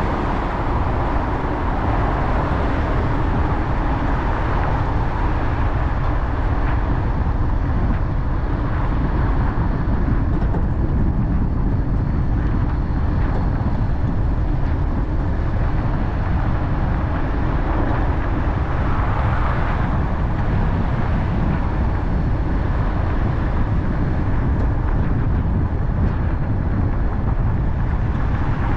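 Car driving: steady road and engine noise, with a brief swell about twenty seconds in and another near the end.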